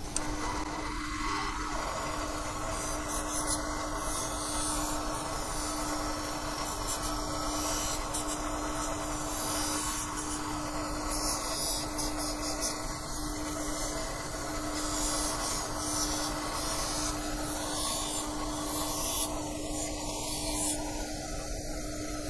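Bench grinder running with a steady motor hum while a thin shiny metal strip is held against the wheel, giving an uneven grinding hiss. The cut edges are being ground level and smooth.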